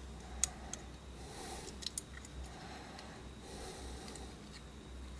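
A few faint, sharp clicks and light taps of small metal and plastic parts being handled as a sheet-metal plate is lifted off the inner housing of a Sony Rolly SEP-10, over a low steady hum.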